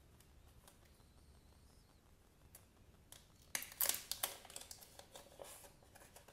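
A folded paper instruction sheet crinkling and rustling as it is pulled out of a small cardboard box, with a rapid cluster of crackles from about halfway in. Before that there are only faint handling clicks on the box.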